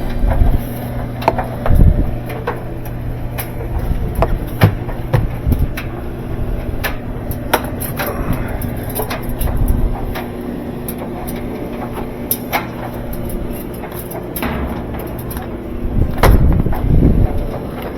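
Clicks, knocks and a few heavier thumps as parts of a top-loading washing machine's tub are handled and checked, over a steady low hum.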